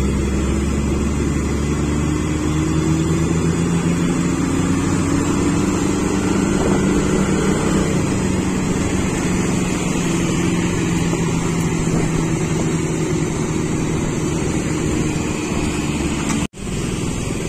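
Road vehicle engine running steadily at low speed, its pitch drifting slowly up and down, over road and wind noise. The sound cuts out for an instant near the end.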